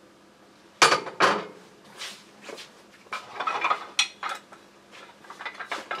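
Steel lathe turning tools clinking and knocking against one another as a handful is sorted, with one sharp knock about a second in and a run of lighter metallic clinks after it.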